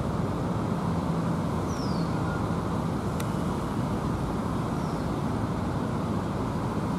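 Steady low background rumble, with two faint, short falling bird chirps about two and five seconds in.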